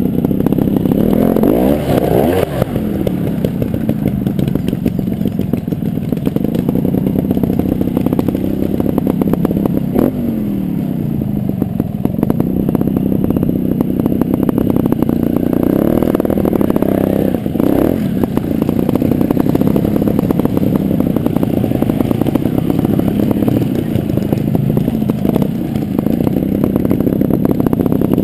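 Gas Gas TXT300 Raga two-stroke trials motorcycle engine running, its revs rising and falling over and over as the throttle is blipped, with clattering and scraping from the bike over rough ground.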